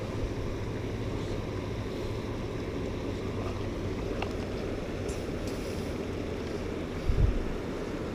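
Steady rushing noise of river water running among rocks, with wind on the microphone, and a brief low thump about seven seconds in.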